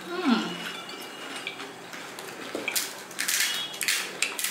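Eating fuchka: crisp, hollow puri shells cracking and crunching with chewing, as short sharp crackles that cluster in the second half. A brief falling hum of a voice comes near the start.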